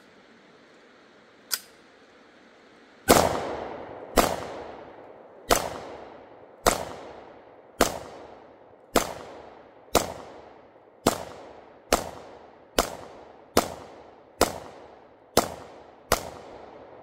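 A faint crack, then a run of about fourteen sharp bangs roughly a second apart, coming slightly quicker toward the end. Each bang rings out in a long echo that fades over most of a second.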